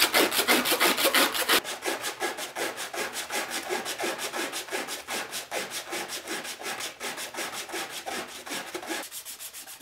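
Sandpaper wrapped around the edge of a laminated maple skateboard deck, rubbed rapidly back and forth to round the edge, several strokes a second. The strokes are loudest for about the first second and a half, then go on a little softer.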